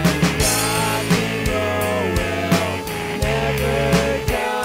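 Background rock music with drums, bass and a melody line.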